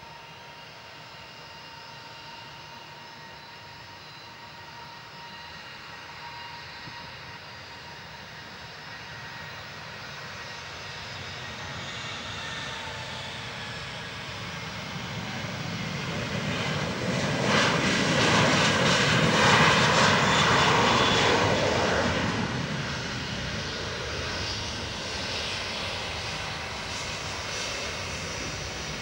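Boeing 737-800's twin CFM56-7B turbofans at takeoff thrust. At first a steady, distant engine whine, it grows louder and louder and is loudest as the jet races past on its takeoff roll about two thirds of the way through. It then eases off as the aircraft lifts off and climbs away.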